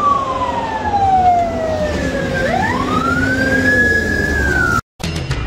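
Emergency vehicle siren wailing: the pitch falls slowly for about two and a half seconds, rises again, holds high, then begins to fall before cutting off abruptly near the end.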